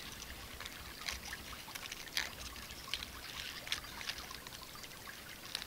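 A small stream trickling, with scattered faint clicks and plinks.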